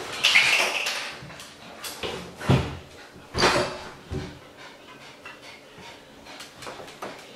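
A wet Pomeranian making a few short dog sounds, loudest about two and a half and three and a half seconds in, then quieter.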